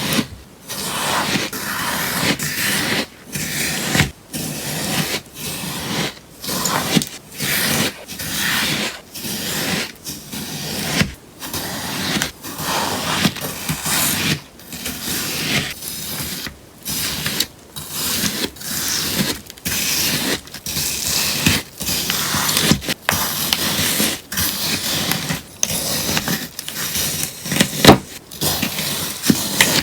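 Scissors cutting through a sponge, crisp crunchy snips repeating about once a second.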